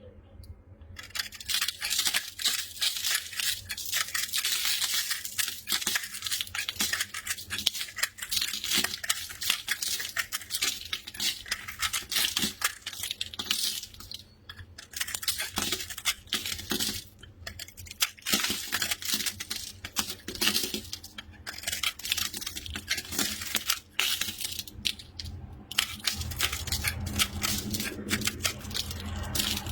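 Close, crisp crackling and crunching, dense with small clicks, as of a brittle material being crushed, cut or torn; it starts about a second in and breaks off briefly a few times.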